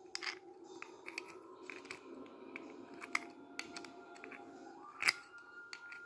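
Small metal clicks and taps as the bell dome of a restored 1920s bicycle bell is handled and fitted back onto its gear mechanism, the loudest knock about five seconds in, followed by a faint ringing tone.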